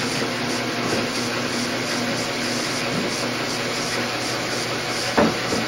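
DC electric motor spinning a homemade one-cylinder compression-ignition Hvid engine over, a steady whirring as the engine is motored without catching on naphtha fumes. One sharp knock about five seconds in.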